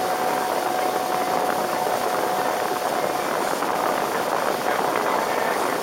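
Boat motor running steadily, with a faint whine that drops out about halfway through.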